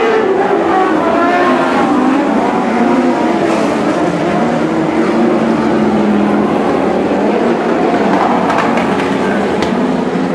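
Engines of several Lightning Sprint race cars running together as the pack circulates the dirt speedway. Their pitches rise and fall with the throttle.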